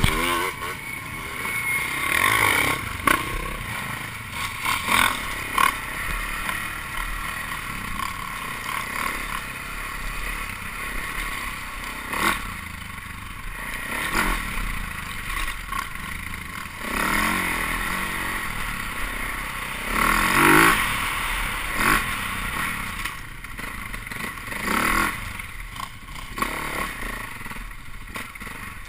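Husaberg enduro dirt bike engine riding a trail, its revs rising and falling with repeated bursts of throttle.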